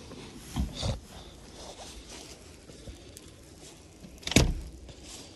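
Snow shovel working through deep snow: two short scrapes and crunches within the first second, then a louder one a little after four seconds.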